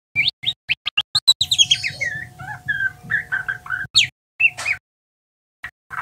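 Juvenile white-rumped shama practising its song (ngeriwik): quick runs of short chirps and rising and falling whistled notes. Near the end it breaks off for about a second.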